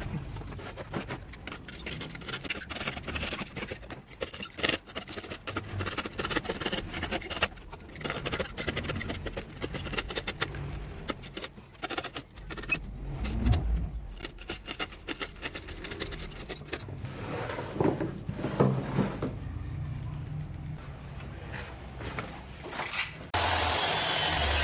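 Workshop handling sounds: irregular clicks, knocks and scraping of tools and metal or wooden parts being worked by hand. About a second before the end, a power tool switches on abruptly and runs steadily.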